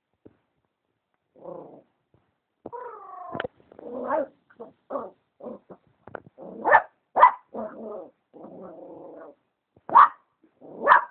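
Dachshund puppy yapping and growling in short, irregular bursts, with a whine-like call early on and a few loud, sharp yaps around the middle and near the end.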